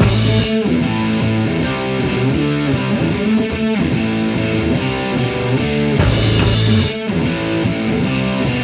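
Rock music with distorted electric guitar playing a stepped riff over a moving bass line, with a bright crash near the start and again about six seconds in.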